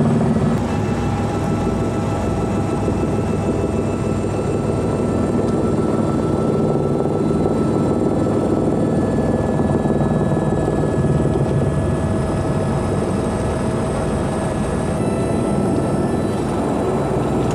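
Helicopter engine and rotor noise heard from inside the cabin: a steady, dense rumble with a constant high whine, as the helicopter comes down and sets down on the tarmac.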